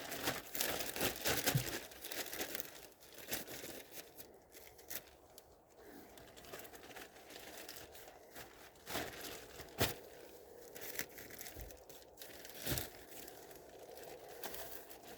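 Large plastic garbage bag being folded by hand, crinkling and rustling on and off, busiest in the first couple of seconds, with a few sharp crackles later.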